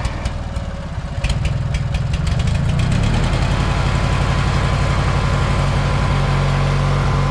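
Kubota KX018-4 mini excavator's diesel engine running just after starting, rising in level about a second in and then settling into a steady run.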